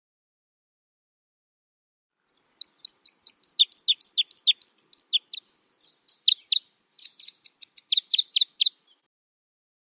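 A bird singing: after a silent start, a long run of quick, high chirping notes, many sliding downward, about five a second, broken by two short pauses.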